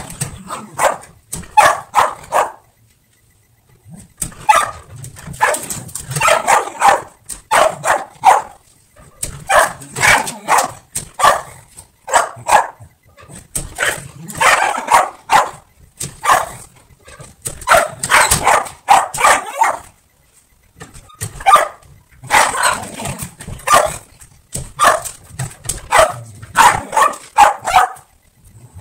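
Shetland sheepdog barking excitedly at a door's mail slot, in rapid volleys of several barks a second broken by short pauses.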